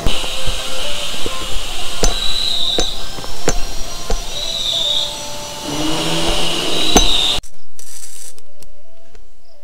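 Electric arc welding on steel: a steady frying crackle with sharp pops, which cuts off suddenly about seven seconds in, leaving background music.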